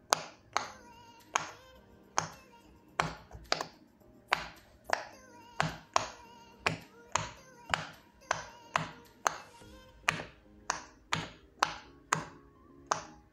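Bubbles of a silicone pop it fidget toy pressed in one after another, a sharp pop about twice a second, over faint background music.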